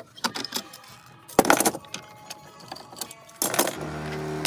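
Metal clamps clanking and clattering as a C-clamp and a spring clamp are loosened and set down on a wooden workbench, with the loudest clatter about a second and a half in. A steady hum begins near the end.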